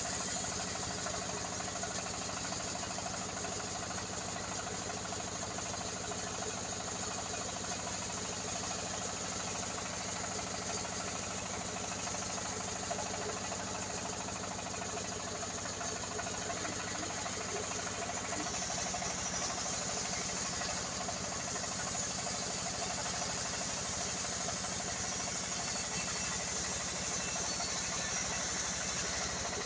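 Sawmill machinery running steadily while sawing an old teak log: a continuous engine-like drone, its tone shifting slightly about 18 seconds in.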